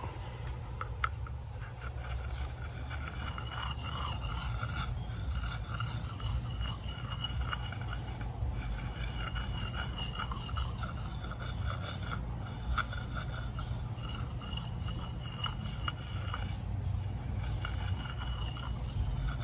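Carving knife blade shaving and scraping green cherry wood in continuous strokes, broken by short pauses every few seconds, over a steady low rumble.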